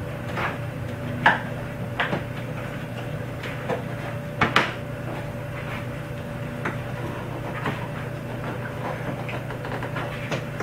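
Plastic clicks and knocks as a plastic firewall trim panel is pried and pulled loose in a car's engine bay. A few sharp snaps stand out, the loudest about a second in and about four and a half seconds in, over a steady low hum.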